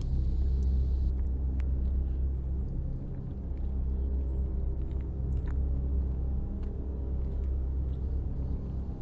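A low, steady rumbling drone with sustained tones, easing briefly about three seconds in, with a few faint ticks over it.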